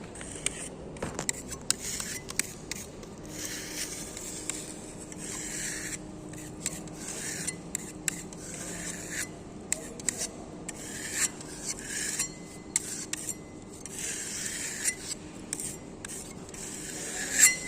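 Rasping scrapes of a hand tool drawn over concrete in repeated strokes, with light clicks and knocks between them and a sharp knock near the end.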